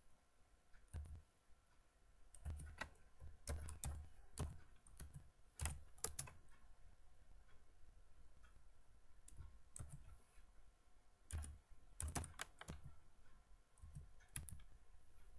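Faint keystrokes on a computer keyboard, typed in irregular clusters with pauses between them, as a short line of text is entered.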